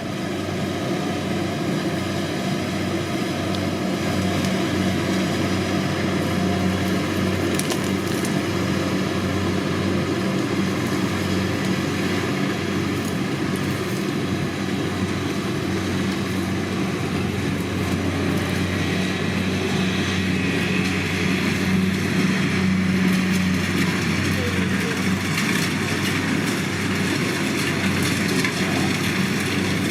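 Kubota DC-70 rice combine harvester running steadily at work: an even engine hum under a dense mechanical rush from the cutting and threshing gear.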